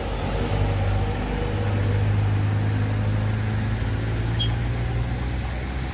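Isuzu Giga truck's diesel engine working under load with a steady low drone as the truck creeps forward on a rain-wet steep climb, easing off about five seconds in.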